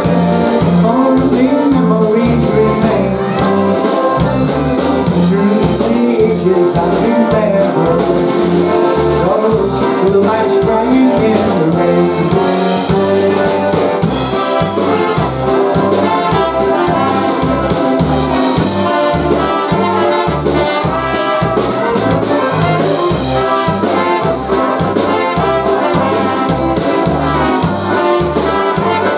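Live polka band playing dance music, with horns carrying the tune over a steady bass beat.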